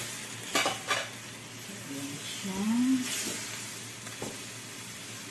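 Whole chicken sizzling in a frying pan of pineapple-juice marinade, with a few sharp clicks as tongs knock against the pan while turning it.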